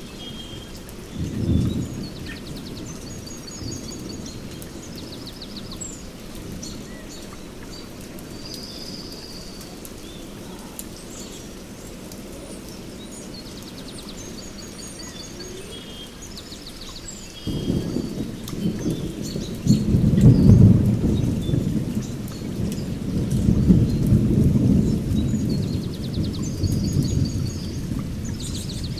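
Steady rainfall with thunder: a brief low rumble about a second and a half in, then a long rolling rumble that starts suddenly past the middle and swells twice before easing. Birds chirp and trill over the rain throughout.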